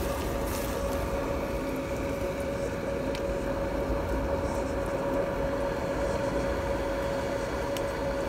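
Steady background drone with one constant mid-pitched tone over a low rumble, unchanging throughout, with a couple of faint ticks.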